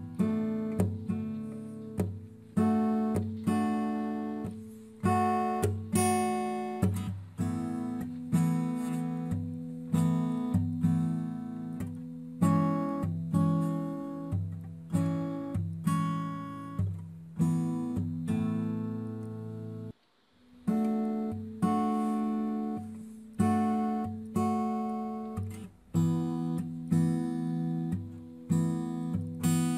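Acoustic guitar background music, plucked notes and chords, with a brief pause about twenty seconds in.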